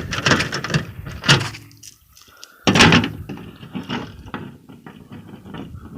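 A series of clicks and knocks, with one louder thump about three seconds in.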